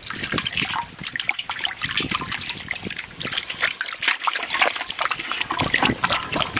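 Water splashing and dribbling as hands wash and rub a large pangasius fish in a shallow basin of water: many quick, irregular splashes.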